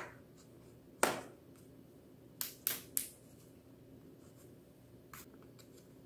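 Sharp clicks of a Dell XPS 17 laptop's bottom cover snapping loose from its retaining clips as a guitar pick is run along the seam: one about a second in, three in quick succession around the middle, and a faint one near the end.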